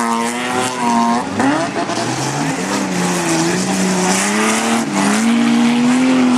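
Engines of several over-1600 cc autocross saloon cars running hard on a dirt track, their pitch rising and falling as the drivers rev, lift and shift, with more than one engine heard at once.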